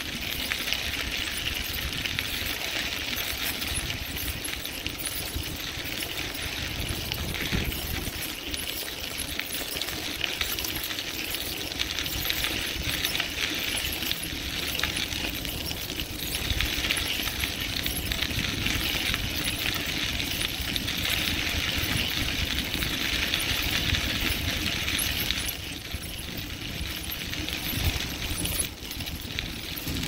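Bicycle tyres rolling fast over a crushed-limestone trail: a steady gritty hiss with fine clinking, over a low wind rumble on the microphone. The hiss drops off briefly near the end.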